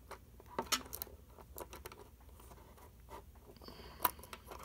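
A KeyBar key organizer being worked by hand, its pocket clip pried into place against the stacked keys: faint scattered metallic clicks and scrapes, the sharpest click just under a second in and another near the end.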